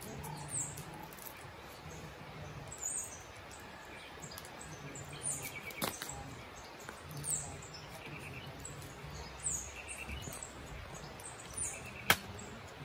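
Small birds chirping all around, with short high falling chirps repeating at irregular intervals, and two sharp clicks, about six and twelve seconds in.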